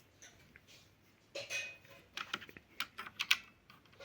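Keys of a Cosmic Byte mechanical keyboard clicking as they are pressed, irregularly, with a cluster of clicks past the middle. There is a short rustle or scrape of handling about a second and a half in.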